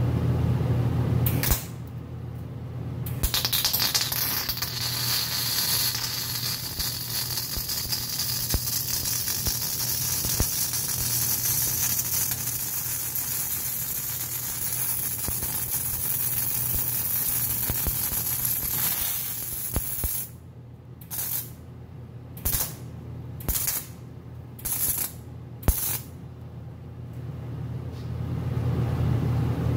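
MIG welding arc crackling and hissing as it fills the bore of a small steel sprocket with weld, set hot at 200 amps with a high wire feed. One long continuous run of about fifteen seconds, then about six short bursts of a second or less.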